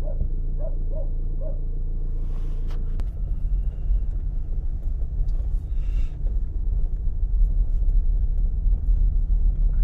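Car engine idling with a steady low hum. About three seconds in there is a click, and the sound turns to a louder, uneven low rumble as the car drives off.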